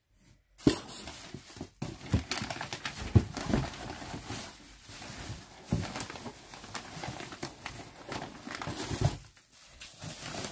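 Hands rummaging through packed items in a box: packaging rustling and crinkling, with scattered knocks as items are moved about.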